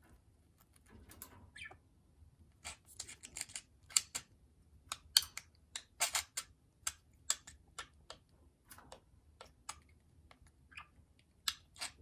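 Budgerigar's beak pecking and gnawing at a wooden chew toy: irregular sharp clicks and taps of beak on wood, busiest in the middle and again near the end.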